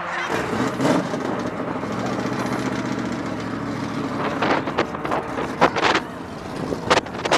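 Two race cars accelerating away down a runway, their engines fading into a steady rushing noise, with a few sharp knocks near the end.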